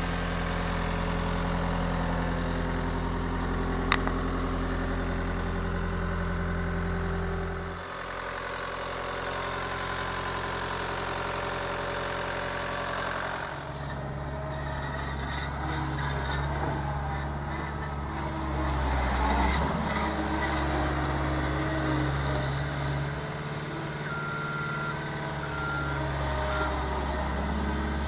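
Caterpillar 259B3 compact track loader's diesel engine running steadily, its note shifting about 8 seconds in and again at about 13 seconds as the machine is driven and turned, with a single sharp click about 4 seconds in.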